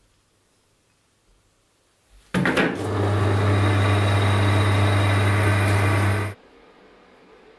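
Drill press running, a small drill bit boring into a brass gear wheel: a steady motor hum with a cutting hiss that starts suddenly a little over two seconds in and stops abruptly about four seconds later.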